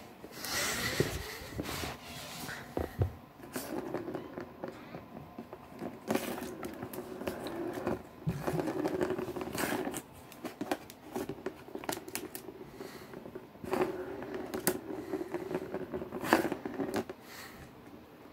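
A kitten batting a ball around the plastic track of a round cardboard scratcher toy: the ball rolls in runs of a few seconds with a low steady rumble, mixed with sharp clicks and scratches of claws on plastic and cardboard. A rustle sounds in the first couple of seconds.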